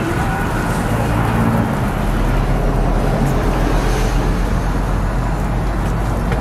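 Steady low rumble of street traffic noise, with a low hum underneath and a few faint ticks.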